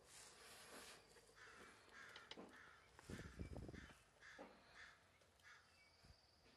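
Near silence: faint rustles and knocks from the handheld camera moving, with a low rumble about three seconds in and a run of faint repeated calls in the background.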